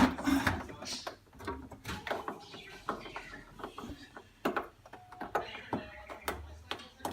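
Irregular clicks, taps and knocks of hands handling plastic panels, styrofoam and a wire connector inside a fridge compartment while a temperature probe is fitted and plugged in. A steady low hum comes in near the end.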